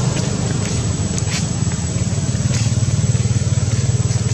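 An engine running steadily with a fast, even pulse, with a thin, steady high-pitched tone above it.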